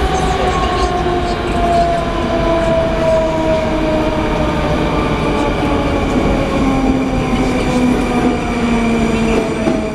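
81-740 Rusich metro train running in the tunnel, heard inside the car: a steady loud rumble of wheels on rails, with the traction motors' whine falling slowly in pitch as the train slows.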